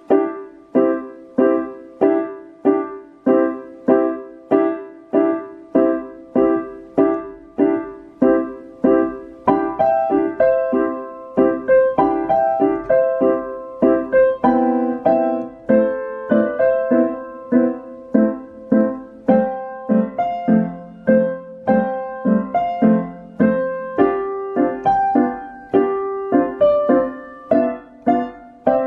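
Digital piano playing a solo piece: steady repeated chords about two a second, with a melody added above them from about ten seconds in.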